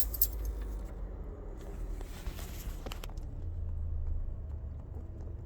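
Toyota RAV4 engine just started with the key and running at idle, a steady low hum, with a single click about three seconds in.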